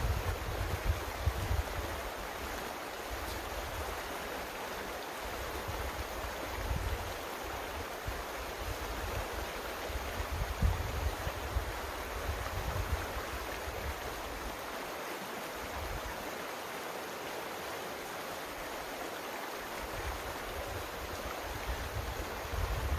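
Small mountain creek running steadily, with an irregular low rumble of wind on the microphone that comes and goes.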